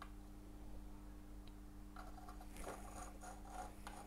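Faint crackling sizzle of solder flux as solder melts onto a header-pin joint under the soldering iron, starting about two seconds in. A steady low hum runs underneath.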